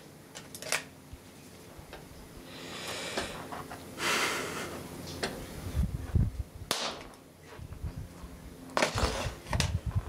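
Sharp electrical snaps from a capacitor bank charged to about 250 volts DC being discharged through a hand-held probe into a circuit board: a few snaps, the loudest near the end, with low knocks and handling noise between them.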